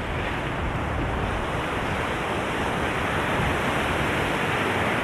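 Mediterranean surf washing onto a sandy beach, a steady rush of breaking waves, with some wind rumbling on the microphone.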